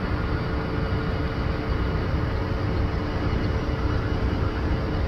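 Steady low rumble of outdoor city background, heavy in the lows like wind on the microphone, with a faint steady hum under it.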